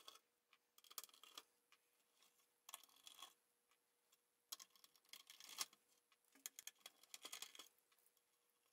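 Near silence with faint, scattered small clicks and ticks: a screwdriver working out the screws that hold a cassette deck's main circuit board in its case.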